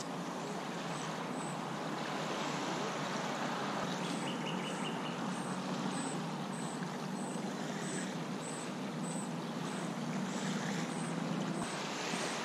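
Steady lakeshore ambience: a low, even rumble of distant engine traffic over gentle lapping of small waves on the beach, with a faint high chirp repeating a little under twice a second.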